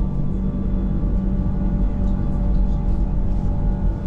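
Electric mountain train running: a steady low rumble with a constant hum of several steady tones from the drive.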